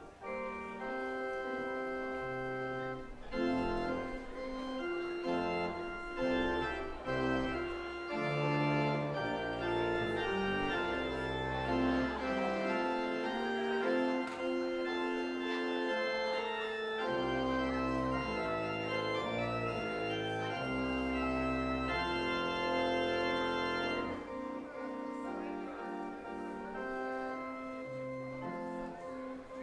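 Organ music: slow, sustained chords that change about once a second, with deep bass notes under most of it that drop away near the end.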